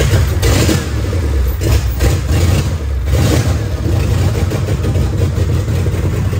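Supercharged 5.4-litre Ford Lightning V8 running loud, fresh from its first start on a Holley Terminator X with only a rough base tune. The throttle is opened briefly about three times in the first few seconds.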